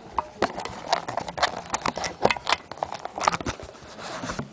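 iPod nano retail box packaging being handled and rummaged through: an irregular run of rustles, clicks and light knocks.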